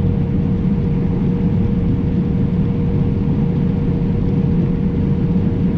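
Case IH 7088 combine running steadily under load while harvesting wheat: a continuous low rumble from the engine and threshing machinery, with a constant whine on top.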